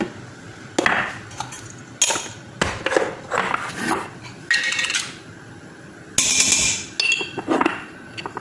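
Spoon clinking and knocking against a cooking pot and spice containers as turmeric powder is spooned in: a run of irregular taps and clinks, some ringing briefly, with a louder half-second scrape about six seconds in.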